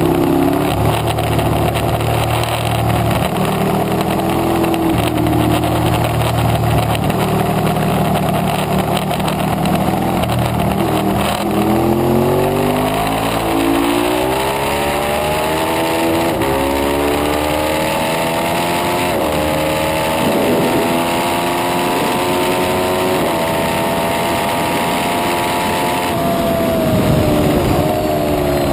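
Ducati 848 Evo Corse SE's L-twin engine heard onboard at a track day, at part throttle through corners, then accelerating hard through several upshifts. The revs climb and drop back with each shift, then fall away near the end as the throttle comes off, over a steady rush of wind.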